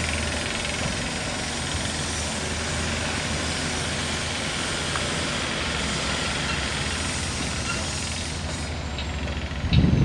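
Steady mechanical noise of construction machinery working at a building site, with a brief low thump near the end.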